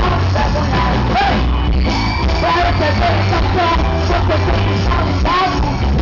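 Live rock-style Christian worship band playing, a singer's voice gliding over heavy bass and drums.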